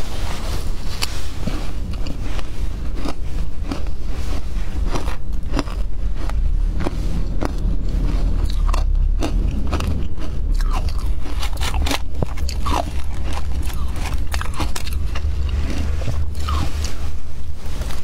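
Close-up crunching and chewing of shaved ice dusted with milk powder: dense, sharp, crackly crunches as mouthfuls of ice are bitten and chewed. A steady low rumble runs underneath.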